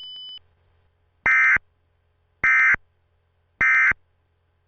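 Emergency Alert System SAME digital data tones: three short, identical bursts about a second apart, the end-of-message code that closes an alert. A faint steady tone cuts off near the start.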